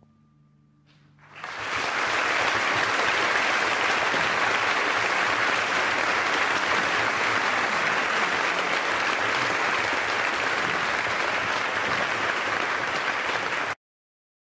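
Audience applause, an even clapping that swells in about a second and a half in, holds steady, and cuts off abruptly near the end.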